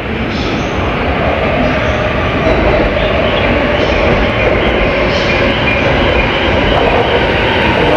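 Keihin-Tohoku Line electric commuter train pulling in to the platform: a loud, steady noise of wheels on rails and motors.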